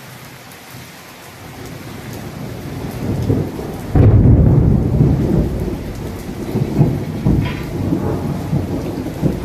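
Steady heavy rain with thunder: a low rumble builds about two seconds in, breaks into a loud crash about four seconds in, and goes on rolling.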